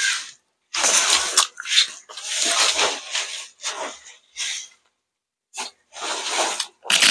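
Crispy deep-fried chicken skin crunching and crackling as it is bitten and chewed close to the microphone, in irregular bursts with a short pause about five seconds in.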